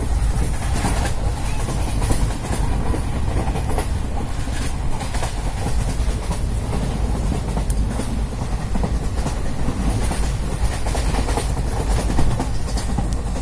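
Wheels of the Matsyagandha Express passenger train running on the track: a steady low rumble with irregular clicks and clacks from the rails.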